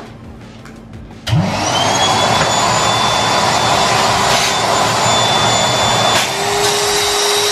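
Vacuum cleaner switched on about a second in, its motor spinning up to a steady whine over a rush of air. Near the end the nozzle is pressed onto the valve of a vacuum storage bag full of clothes and the sound changes, a lower steady hum joining in as it starts drawing the air out of the bag.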